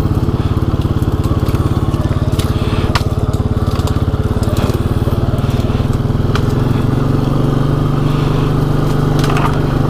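Can-Am Outlander Pro HD7 ATV's single-cylinder engine running at low speed under load, with scattered sharp snaps and scrapes of brush and branches against the machine.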